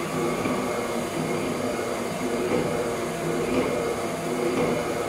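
Kasto PSB 4 power hacksaw running, its electric motor humming steadily while the saw bow strokes back and forth about once a second.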